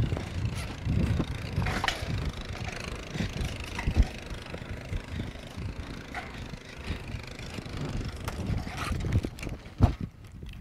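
ATV engine running as it tows a Heel-O-Matic heel dummy, with wind buffeting the microphone and the irregular thuds of a loping horse. A sharp knock comes near the end.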